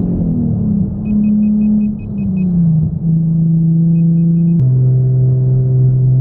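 Nissan 350Z's straight-piped V6, heard from inside the cabin, pulling along the road; its note drops twice as it shifts up, then steps abruptly to a steady lower drone about four and a half seconds in. A quick run of short high beeps sounds about a second in, with a few more near four seconds.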